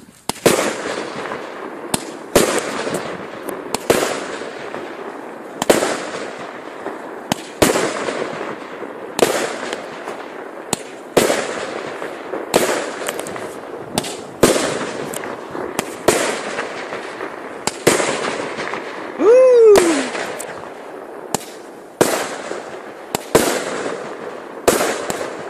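Thunderking salute fireworks battery firing its shots in sequence: a long run of loud, sharp bangs, about one to two a second, each trailing off in a long echo. About three-quarters of the way through, a single falling whistle sounds once.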